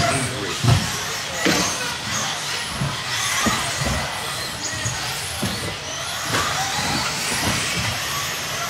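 1/10-scale X-Ray electric RC buggy running laps on a carpet track: a high motor whine that rises and falls with the throttle, with several short sharp knocks from the car striking the track.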